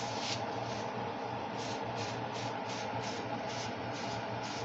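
A cloth rubbed in quick strokes over a glass-top electric stove: a few swishes at the start, then an even run of about three swishes a second from about a second and a half in, over a steady background hum.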